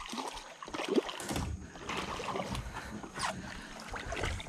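Irregular splashing and handling knocks at the side of a small skiff as a small snook is landed with a landing net, over a low rumble.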